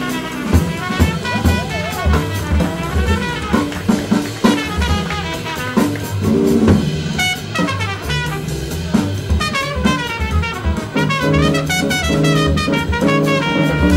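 Live jazz combo: trumpet playing a line over drum kit and upright bass, with cymbal and drum strokes throughout. The trumpet's notes grow busier about halfway through.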